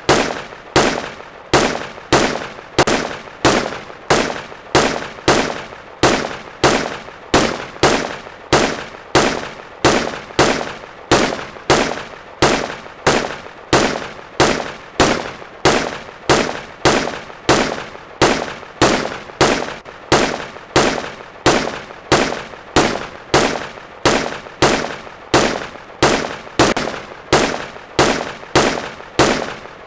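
M1 Garand rifle firing .30-06 rounds in a steady, evenly spaced string of shots, about three every two seconds. Each shot is a sharp crack with a short ringing tail.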